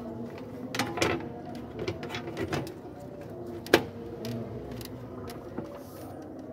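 Hand work in a car's engine bay: plastic and metal parts knocking and clicking irregularly as they are handled, with one sharp knock a little before the four-second mark, the loudest sound.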